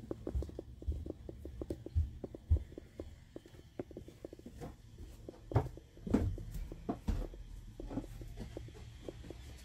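Irregular light knocks, taps and low thumps, several a second, with no steady tool running.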